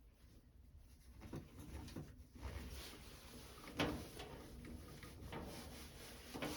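Faint handling sounds: a few soft clicks and knocks as a rubber pressure hose is pushed onto the port of a furnace's draft inducer motor.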